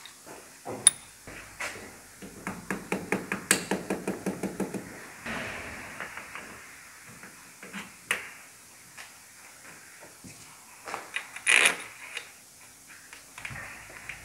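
Hand-tool work on a car engine's metal parts: scattered sharp clicks and knocks, a run of quick even clicks at about five a second, and a brief hiss about halfway through.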